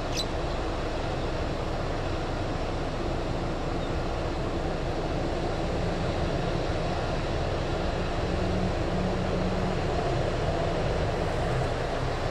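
Jet engines of a Boeing 787-9 airliner, its GE GEnx-1B turbofans, running as it rolls on a wet runway at the start of its takeoff: a steady deep rumble with a hiss, growing a little louder in the second half as faint engine tones come in.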